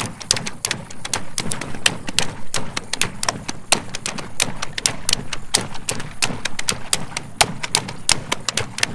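Garden hose running into a large water balloon: water rushing with an irregular crackle and spatter, several sharp clicks a second.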